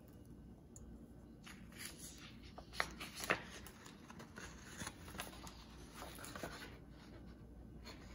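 Loose hole-punched paper sheets handled and flipped over by hand: rustling from about a second and a half in until near the end, with two sharp paper snaps around three seconds in.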